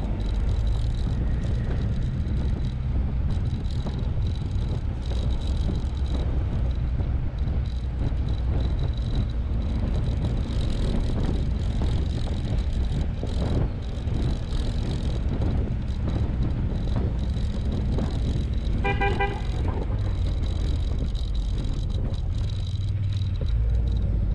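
Land Rover Freelander 2 driving along a gravel track, a steady low rumble of engine and tyres on gravel picked up by a camera on the bonnet. About 19 seconds in, a vehicle horn gives a quick run of short beeps.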